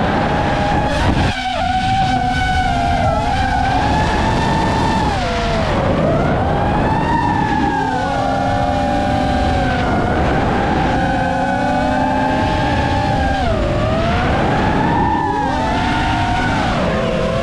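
FPV racing quadcopter in flight, its motors and propellers whining in several close pitches that rise and fall together as the throttle is worked up and down.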